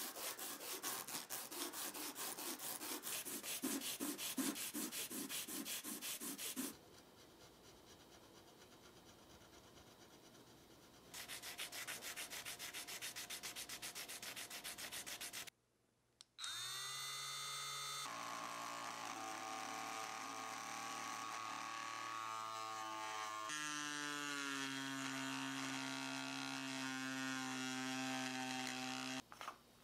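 A small clear plastic piece rubbed back and forth on sandpaper in quick, even strokes, in two spells. Then a small electric rotary tool with a ball-shaped bit starts up with a rising whine and runs steadily as it grinds into the clear piece, its pitch shifting a couple of times before it stops near the end.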